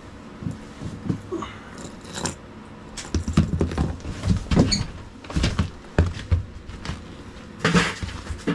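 Irregular knocks, clatter and thumps of fishing gear and boots on a metal diamond-plate floor, with a cluster of heavier thuds in the middle and another near the end.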